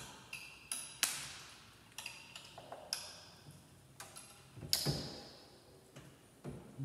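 Irregular clicks, taps and light metallic knocks, about a dozen, as wire connectors are pushed back onto a microwave's touch-panel board and the panel is handled against the sheet-metal housing. Some knocks ring briefly; the loudest comes about five seconds in.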